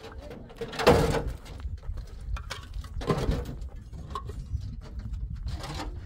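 Hollow concrete blocks clunking and scraping as they are unloaded from a pickup truck and stacked, with three louder knocks about two seconds apart and smaller clicks between them, over a low rumble.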